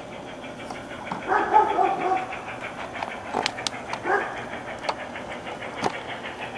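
A dog barking: a short run of barks about a second in and another around four seconds. Under it is a steady background with a few sharp clicks in the second half.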